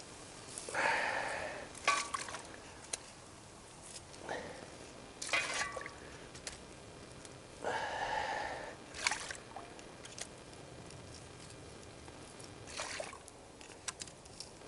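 Shallow water being scooped up with a shovel and tipped out, splashing in several separate pours of about a second each, with light clicks and knocks between.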